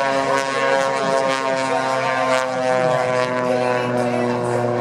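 An aerobatic biplane's 400-plus-horsepower piston engine and propeller at high power in flight: a steady drone with many overtones, its pitch wavering slightly.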